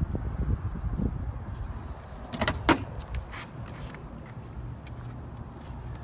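Rustling and handling of a take-down bow and its bowstring, with a cluster of sharp clicks about two and a half seconds in that is the loudest part, over a low rumble.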